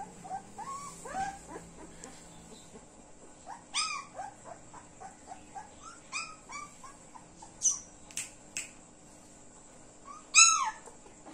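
Labrador retriever puppies whining and yelping in short, rising-and-falling squeals, repeated in bunches, with the loudest yelp near the end. A few sharp high clicks come about two-thirds of the way through.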